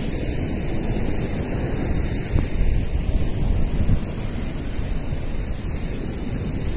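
Ocean surf breaking on a sandy beach, a steady roar, with wind buffeting the microphone.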